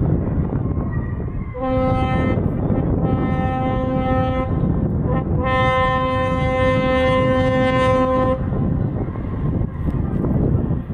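Ship's horn sounding three blasts: a short one, a longer one, then a long one of about three seconds. A steady low rumble continues underneath.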